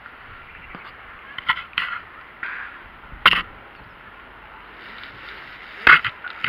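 Shoes scuffing and knocking against a concrete wall as an abseiler walks down it: several short, sharp scuffs, the loudest a little past three seconds and again near the end, over a steady hiss.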